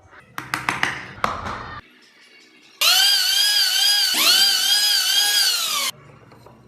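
A handful of quick scraping strokes of a carving tool on wood, then an electric rotary carving tool whining loudly in two runs that start and stop abruptly, its pitch dipping and recovering over and over as it bites into the wood.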